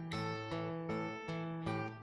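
Acoustic guitar strumming chords at an even pace, each strum starting a fresh ringing chord several times a second.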